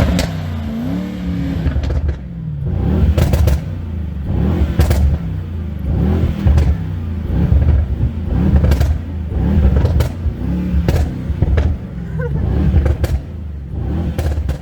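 Mercedes-AMG E63 S Edition One's twin-turbo V8 revved again and again, its exhaust note rising and falling with each blip, with many sharp pops and crackles from the exhaust between the revs.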